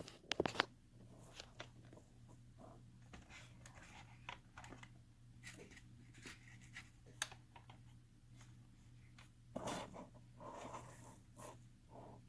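Faint scattered clicks and taps of plastic toys being handled, over a low steady hum.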